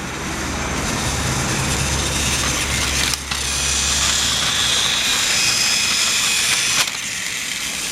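Battery-powered Trackmaster toy engine (Paxton, an 08-class diesel shunter model with a flat-type drive unit) running on plastic track by the turntable: a steady whirring from its motor and wheels, with a sharp click about three seconds in and another near seven seconds.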